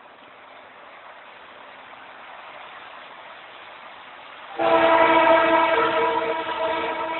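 Horn of an approaching SŽ diesel locomotive: one long blast starting about four and a half seconds in, a loud chord of several tones held for about three seconds. Before it, a faint steady noise of the oncoming train grows slowly.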